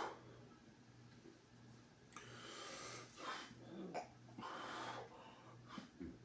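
A man breathing in and out heavily, several faint breaths of about a second each starting about two seconds in, as he works up air for a burp. A short click at the very start and a faint steady low hum underneath.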